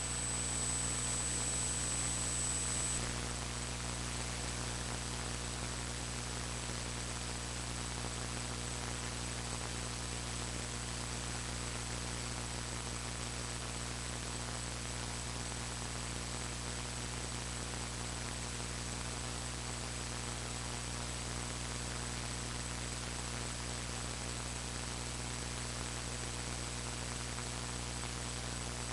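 Steady electrical hum and hiss from a faulty audio recording, with a thin high whine above it. It is a little louder for the first three seconds or so, then stays even.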